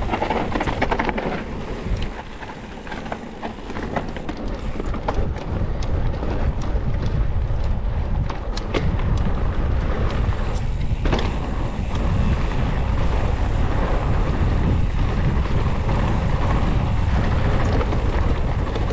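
Wind buffeting an on-board camera microphone on a mountain bike ridden along a dirt trail, over tyre noise. Scattered clicks and knocks come from the bike rattling over rough ground, mostly between about four and nine seconds in.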